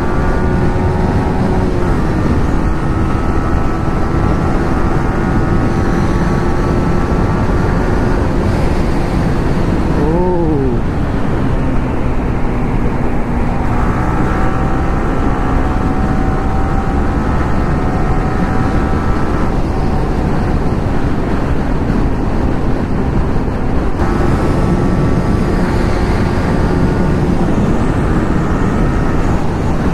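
Sport motorcycle engine running at steady cruising speed, heard from the rider's seat over heavy wind rush. About ten seconds in the engine pitch briefly rises and falls, then settles lower.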